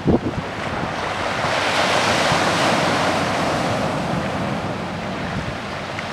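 Sea surf washing with wind buffeting the microphone; the rush of water swells about a second and a half in, then slowly eases off.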